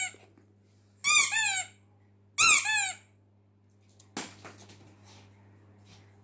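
A rubber squeaky toy squeezed twice, each a loud squeak of about half a second with a wavering pitch. About four seconds in come a knock and faint scuffling.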